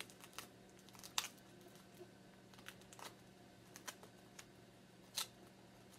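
Faint, scattered crinkles and light ticks of hands pressing and smoothing duct tape on a duct-tape-covered vest, with two sharper clicks, one about a second in and one near the end.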